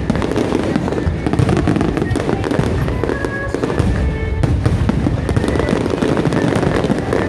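Fireworks display in a dense barrage: many shells bursting over one another in a continuous rumble of booms with close-packed crackling, no pause between them.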